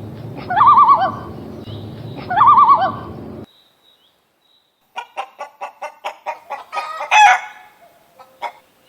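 Chickens: two short, wavering calls, then a quick run of clucks ending in one louder squawk about seven seconds in.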